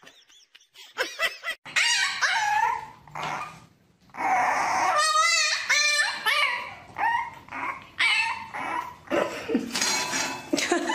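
French bulldog puppy whining and yipping: a run of short high cries starting about two seconds in, with a wavering whine about five seconds in.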